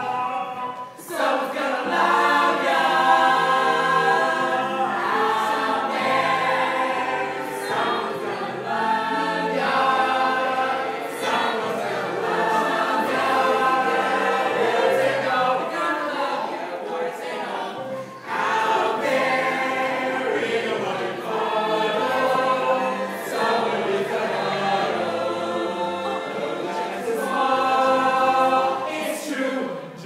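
A chorus of voices singing a show tune with musical backing. The singing breaks off briefly about a second in and again about eighteen seconds in.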